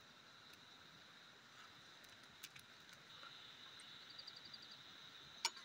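Quiet forest ambience: a steady high-pitched insect drone, with a rapid chirping trill joining in about four seconds in. A few faint clicks, the sharpest just before the end.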